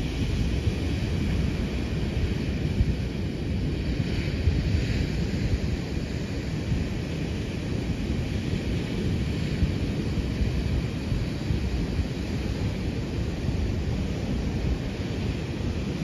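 Wind buffeting the microphone with a low rumble, over the wash of surf breaking on the shore, which swells briefly about four seconds in.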